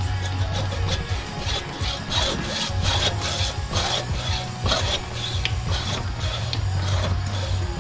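Metal tool scraping and rasping against a small AC adapter's transformer as it is cut open, in repeated irregular strokes about two a second.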